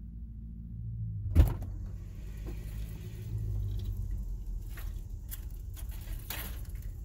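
A pickup truck's door unlatching with one loud sharp click about a second and a half in and being opened, followed by several lighter knocks and rattles, over a low steady rumble.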